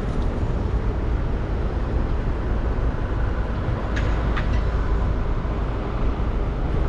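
City street ambience: a steady low rumble of traffic, with two short clicks about four seconds in.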